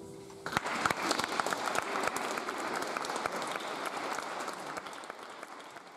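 Audience applauding, breaking out about half a second in as the choir's last faint held note ends, then fading away toward the end.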